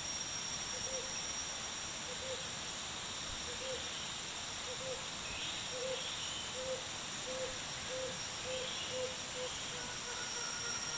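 Tropical forest ambience: a steady chorus of insects with a continuous high whine. Over it, a short low call repeats from about a second in, the gaps shrinking from over a second to a few tenths of a second before the calls fade near the end, with a few faint higher chirps.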